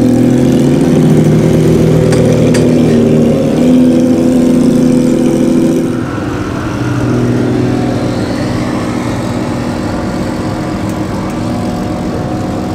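A race car engine idling loudly close by, from the Porsche 911 GT3 Cup in the pit garage, with a brief rise in revs about four seconds in. About six seconds in, the sound cuts to quieter, steady idling of race cars queued in the pit lane.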